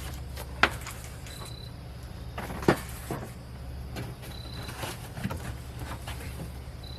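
Two sharp clanks, a couple of seconds apart, with a few lighter knocks, as the grill's parts are handled and set down, over a steady low hum.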